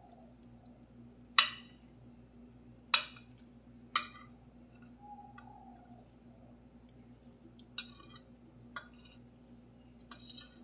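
Metal spoon and fork clinking against a ceramic plate while eating: three sharp clinks in the first four seconds, then a few lighter taps later on.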